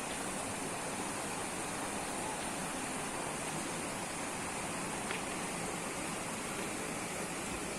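River water rushing steadily, an even hiss of flowing water, with one faint short tick about five seconds in.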